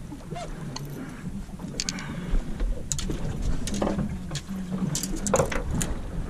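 Landing net with a black sea bass in it lifted aboard and set down on a boat's deck: scattered knocks and rattles, several close together about five seconds in, over a steady low hum.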